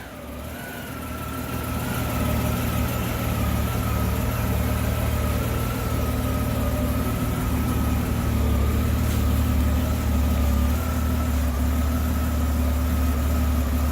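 Honda GL1500 Gold Wing's flat-six engine idling steadily, its freshly rebuilt carburetors synchronized so the idle holds without surging. The sound grows louder over the first couple of seconds, then stays even.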